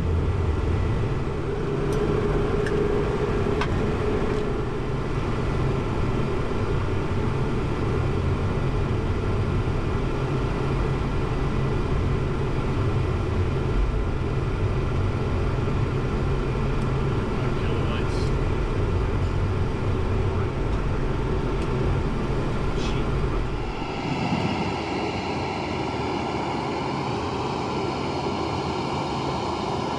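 Steady jet aircraft noise, with the character of the sound changing abruptly about 24 seconds in.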